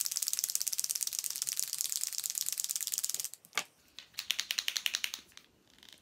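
Paint marker pen shaken hard, the mixing ball inside rattling in rapid clicks to stir the paint. The rattling stops about three seconds in, starts again for a second or so, then stops.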